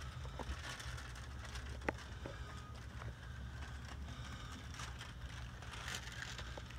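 An engine running in the boat's engine room with a steady low hum, and a few scattered clicks and light knocks over it.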